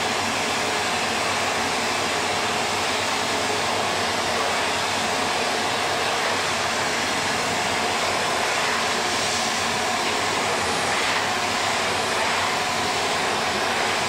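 Canister vacuum cleaner running steadily as its floor nozzle is pushed over the floor: an even rushing noise with a faint steady whine.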